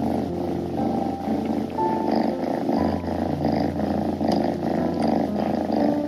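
Tuxedo kittens purring steadily in a continuous rhythmic rumble. Soft background music plays under it with long low held notes.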